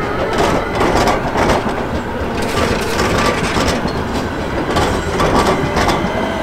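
Articulated low-floor electric tram rolling past close by through a track junction. Its steel wheels give irregular clacks over the rail joints and crossings above a steady rolling rumble.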